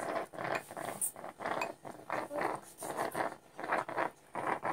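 A spoon clinking against a small bowl during spoon-feeding, amid a run of short, rapid noisy sounds, about two or three a second.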